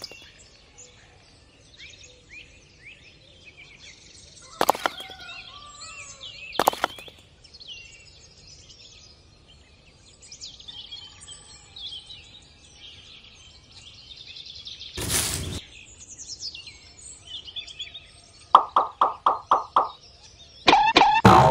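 Small birds chirping and twittering, with a few sharp knocks and a short rustling burst. Near the end comes a quick run of about six evenly repeated calls.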